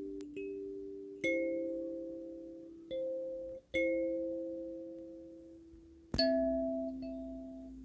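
Kalimba playing a slow melody: single notes and two-note chords plucked one to three seconds apart and left to ring out, the loudest about six seconds in.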